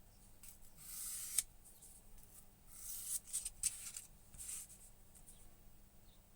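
Edge beveler drawn backwards over 1000-grit sandpaper pressed into the groove of a milled aluminium sharpening jig: a few short, light scratching strokes, roughly a second apart, dying away after about four and a half seconds.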